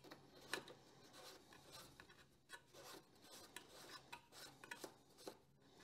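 Faint rubbing and a few light clicks of a small threaded valve cap being unscrewed by hand from its fitting at the back of a Jetsurf jetboard.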